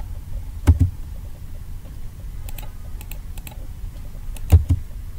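Computer keyboard and mouse clicks as a drawing is entered: two pairs of sharp clicks, one about a second in and one near the end, with fainter key taps between, over a low steady hum.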